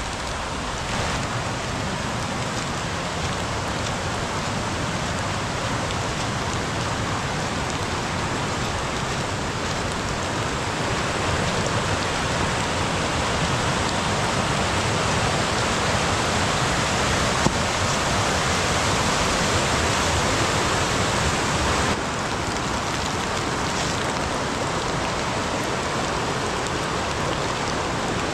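Rushing water of a river in full spate: a steady, loud rush that swells a little midway and drops abruptly about three quarters of the way through.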